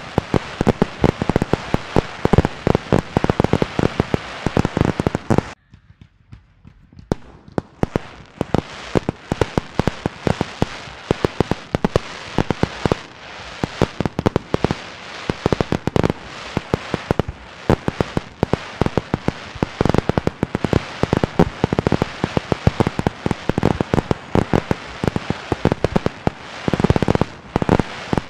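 Fireworks display fired from the sides of a skyscraper: a dense, rapid barrage of bangs and crackles, many reports a second. The barrage breaks off abruptly for about a second and a half near a fifth of the way in, then starts again and carries on.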